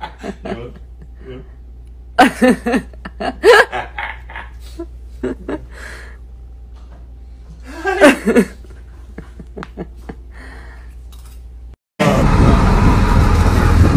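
Short bursts of laughter and voices over a steady low hum. About twelve seconds in it cuts suddenly to loud, continuous traffic noise.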